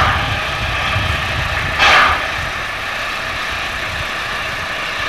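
Steam locomotive standing still: a steady low rumble, with a short hiss right at the start and another about two seconds in.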